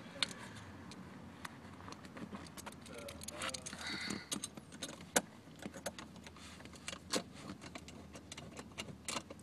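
Small clicks, rattles and light scrapes of a screwdriver and loose screws being worked around a plastic trim panel under a car's steering column, with a brief squeak about halfway through.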